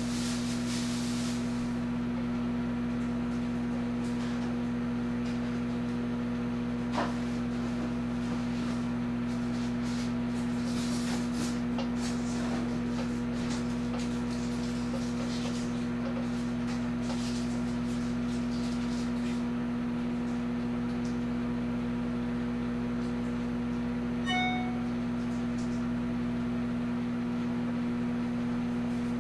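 Amazon Basics 0.7 cubic foot microwave oven running on a cooking cycle with a steady electrical hum. A single click comes about seven seconds in, and a short high chirp just after twenty-four seconds.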